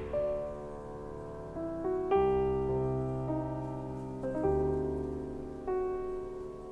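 Slow, gentle piano music: a new chord is struck every second or two and left to ring and fade.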